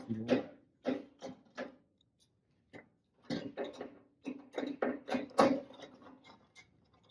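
Workshop handling noises: a string of short knocks and clatter, with a denser run of knocks partway through, as a sheet-metal fender panel and hand tools are handled.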